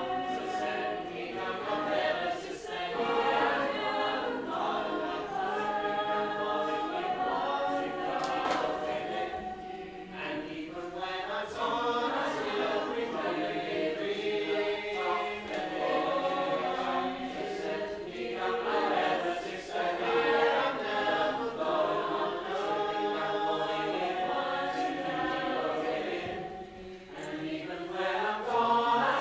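Choir singing a cappella: many voices in shifting, overlapping harmony, with swooping glides in pitch twice.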